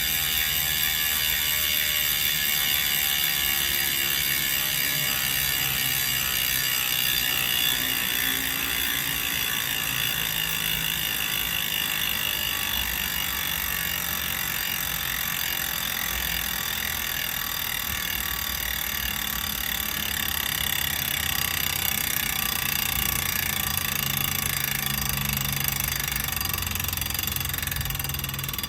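Rear freehub of a Roval Rapid CLX carbon road wheel buzzing steadily as the wheel spins freely: the fast, continuous ratchet clicking of a coasting bicycle hub.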